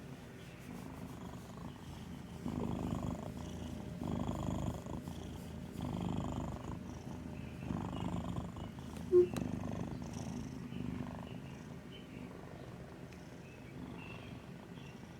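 A sleeping cat snoring, a low rumble that swells on each breath about every one and a half to two seconds. A single brief, sharp click comes a little past the middle.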